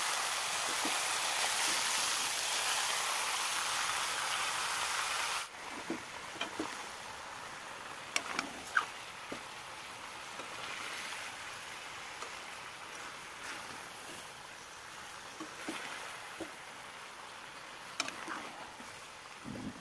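Chicken pieces sizzling in a large metal pan while being stirred with a metal spoon. A loud hiss cuts off suddenly about five seconds in, leaving a quieter sizzle with occasional scrapes and clinks of the spoon against the pan.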